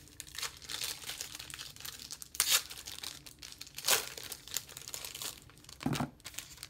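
Football trading-card pack wrappers being torn open and crinkled by hand, crackling in uneven fits, with two sharper bursts about two and a half and four seconds in.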